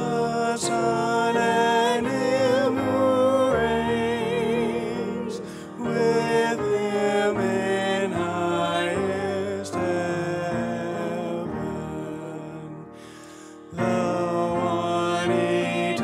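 A woman singing with vibrato, accompanied by a grand piano. The music fades down a little after twelve seconds in, then voice and piano come back in fully about two seconds later.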